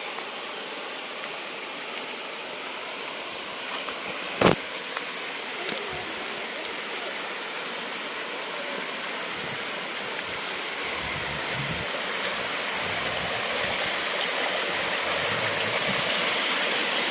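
Waterfall: a steady rush of falling water that grows slowly louder toward the end. One sharp knock comes about four and a half seconds in.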